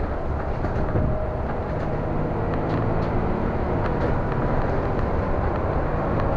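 City bus in motion heard from inside: a steady low engine drone with road noise and light rattles, its engine note settling into a steady hum about a second and a half in.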